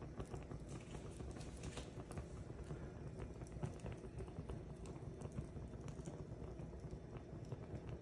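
Paper burning in a small cast iron cauldron, crackling with many small irregular ticks and pops over a low rumble.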